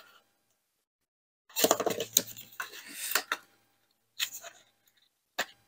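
Cardstock and craft tools being handled on a tabletop: a run of rustling and clattering taps in the middle, a shorter rustle about four seconds in, and a single click near the end.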